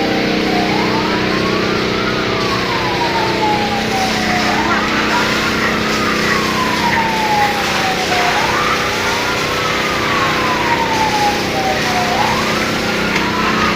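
Fire engine siren wailing, its pitch rising quickly and falling slowly about every four seconds, over a steady engine hum.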